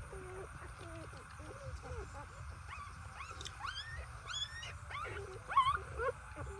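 An animal giving a run of quick, high, rising squeaks, loudest a little before the end, over a steady lower wavering sound.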